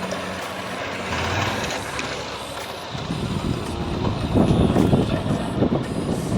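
Vehicle on the move: road and traffic noise, with a low, irregular rumble that grows louder about three seconds in.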